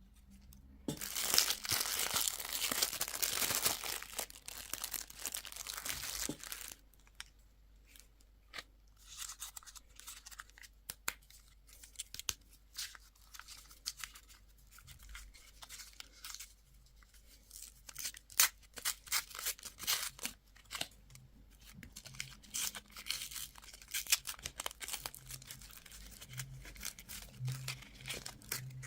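Candy wrappers being torn open and crinkled by hand. A loud stretch of dense crinkling lasts the first several seconds, then comes a short lull, then scattered sharper crackles and snaps.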